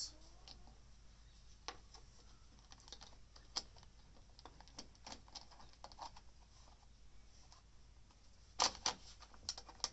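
Faint, irregular clicks and taps of plastic and metal as a Ryobi chainsaw's side cover is fitted back over the bar and its bolts are tightened by hand, with a louder cluster of clicks near the end.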